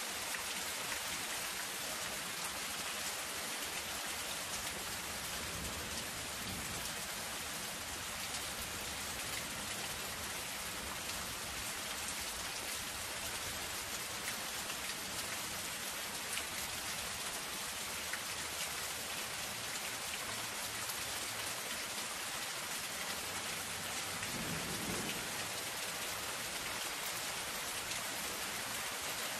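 Soft, steady rain falling on a zinc sheet roof: a dense patter of drops on the metal. A soft low rumble swells briefly twice underneath.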